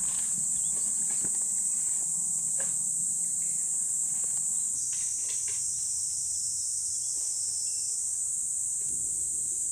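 A steady, high-pitched chorus of summer insects droning without a break, thickening for a few seconds around the middle. A few faint clicks and taps sound under it.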